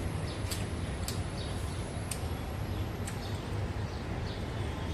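Sharp mouth clicks and smacks of chewing, a few at irregular gaps about a second apart, over a steady low background rumble.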